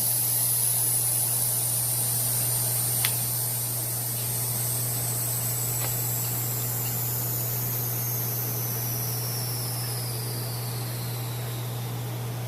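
Steady low machine hum with a high whine that slowly falls in pitch, and a single sharp click about three seconds in.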